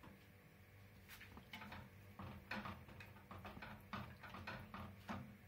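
Wooden spoon stirring chicken pieces in water in a stainless steel pot: a string of light, irregular knocks and clicks against the pot, over a faint low hum.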